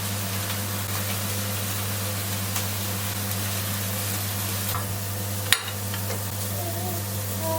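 A motor-driven appliance running steadily, a low hum under a broad hiss, with one sharp click about five and a half seconds in.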